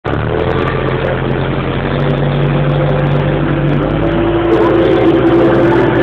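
Same Dorado tractor's diesel engine running steadily under load as it pulls a plough, its note changing slightly about four seconds in.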